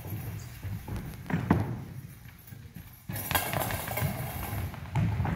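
Goalball throw: quick footsteps on a wooden sports-hall floor and a sharp thud about one and a half seconds in as the ball comes down. The bells inside the ball then rattle as it rolls across the floor.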